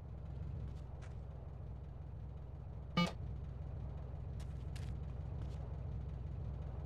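Car engine running with a steady low drone, and a short horn toot about three seconds in.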